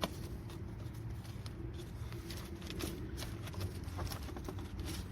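Scattered light clicks and taps of metal battery-terminal hardware and hand tools being handled, over a steady low rumble.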